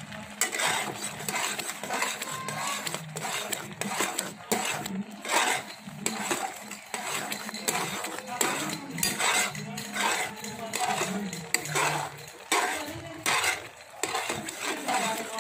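A steel spoon scraping and stirring thick, crumbly bauli (buffalo colostrum milk cooked down toward dry khoa) in a metal pan, in repeated strokes about two a second. The mass is kept moving so it doesn't stick to the bottom while its water cooks off.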